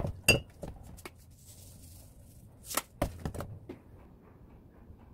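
A utensil knocking and clinking against a frying pan and a ceramic plate as stir-fried spinach and bean sprouts are scraped out and served. The strikes come in two short clusters, one at the start and one about three seconds in, and one clink rings briefly.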